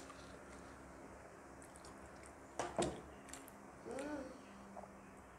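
Quiet mouth sounds of eating at close range: a wet smack of the lips and food about two and a half seconds in, a short hummed voice sound about four seconds in, and a few faint ticks of chewing.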